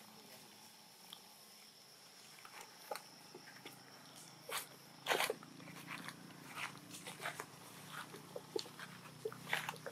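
A macaque walking over dry leaves and grass: short, scattered rustles and crunches a second or two apart.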